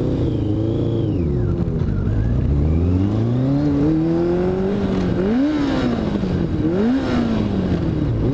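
Motorcycle engine accelerating, its pitch falling and then climbing. It pulls through quick upshifts in the second half, the pitch dropping sharply at each shift and climbing again.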